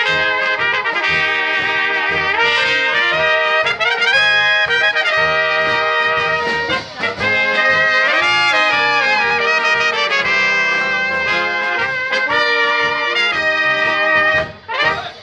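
A brass band of trumpets, a baritone horn and a tuba plays a tune over a steady, pulsing bass line. The playing breaks off briefly near the end, then starts again.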